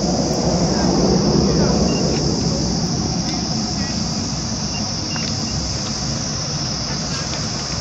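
Steady high-pitched chorus of insects, with a low rumble that swells over the first few seconds and then eases off.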